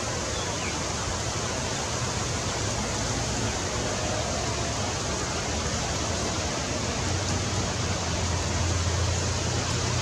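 Steady outdoor background hiss with a low hum beneath it, without distinct events.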